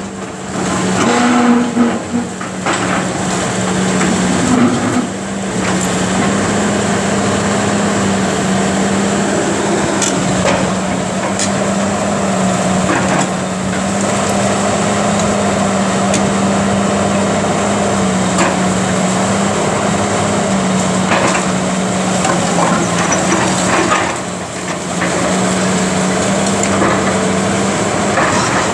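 Caterpillar hydraulic excavator running steadily with a constant engine drone while its demolition grapple tears into a building's roof and brick walls, with scattered knocks and the clatter of breaking masonry and debris.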